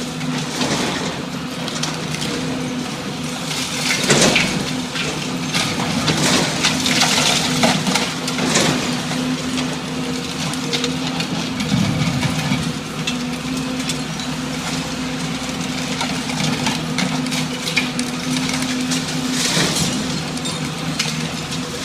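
A heavy machine's engine runs steadily while building material is crushed and breaks. Several loud crunching crashes come a few seconds in, around the middle, and near the end.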